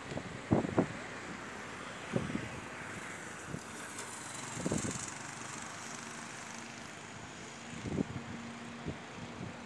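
Outdoor street ambience: a steady hiss of road traffic, broken by uneven low thumps of wind buffeting the handheld camera's microphone. A faint steady hum, as of a distant engine, comes in over the last few seconds.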